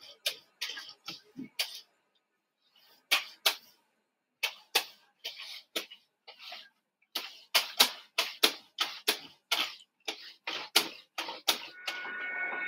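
Sharp clock-like ticking, about three ticks a second, with a pause of a second or so about two seconds in.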